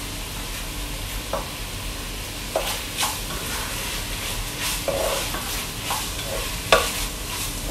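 Diced pork sizzling as it sautés in a large pot, with a spatula scraping and knocking against the pot as it is stirred, the sharpest knock near the end.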